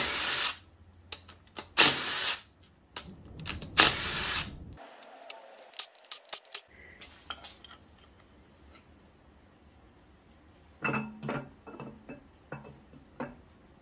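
Cordless impact driver hammering in three short bursts over the first five seconds, backing out the camshaft sprocket and retainer-plate bolts on an LS V8. Then a run of light metal clinks about eleven seconds in, as steel tools are worked at the camshaft's nose.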